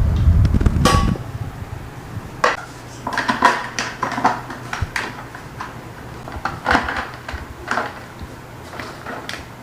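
Small metal and plastic tricycle parts clinking and knocking as they are handled and fitted onto the wheel during assembly, starting with a low handling thump.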